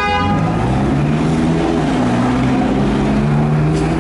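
Mercedes SLR McLaren-based Mansory SLR's supercharged V8 running at low revs as the car rolls slowly past close by, a steady low drone. A car horn cuts off just after the start.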